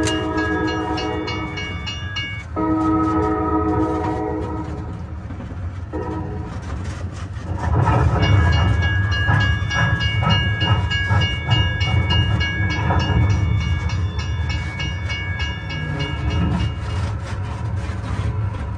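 Park road train, a small rubber-tyred tourist train, running with a low engine sound under a train-whistle sound played twice near the start. From about eight seconds in comes a louder, rhythmic chugging, clickety-clack train sound with a held whistle tone over it.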